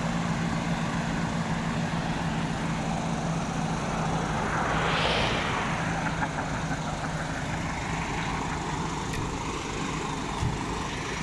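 Heavy truck diesel engine idling steadily with a low hum. A broad whooshing hiss swells and fades about halfway through.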